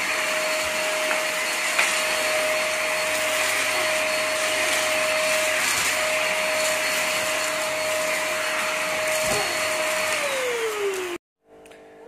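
MAXHEALTH vacuum cleaner running steadily with a constant motor whine as its floor nozzle is pushed over a tiled floor. About ten seconds in the whine falls in pitch as the motor is switched off and winds down, then the sound cuts off.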